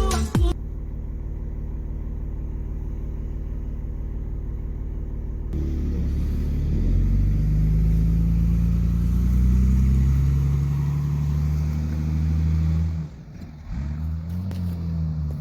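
A motor vehicle's engine, heard from inside: a steady low rumble, then about five seconds in it pulls away, its note rising as it accelerates, easing off briefly near the end before rising again.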